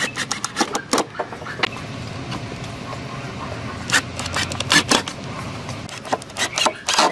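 Cordless Ozito driver driving screws into pine timber: short bursts of sharp clicking and knocking, clustered at the start, around four to five seconds in and near the end, over a low steady hum.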